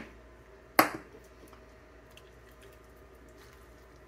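Stainless steel ladle striking the Instant Pot's steel inner pot once, a sharp clank with a brief ring, about a second in; after it only faint small clicks from the ladle and the soup.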